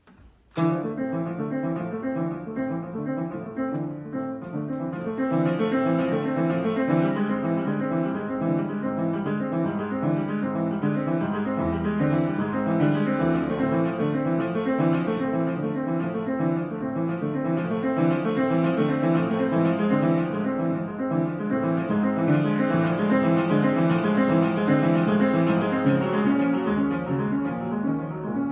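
Piano improvisation in a fast, steady stream of repeated broken-chord notes. It starts about half a second in and grows fuller around five seconds in.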